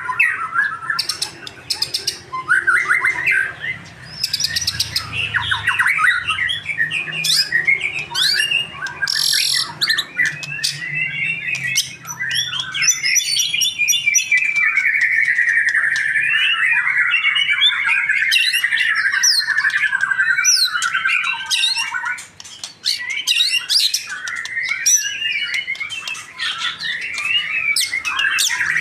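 Male white-rumped shama (murai batu) singing in full song: a continuous run of varied whistled phrases and sharp clicking notes, with a long unbroken warbling passage partway through.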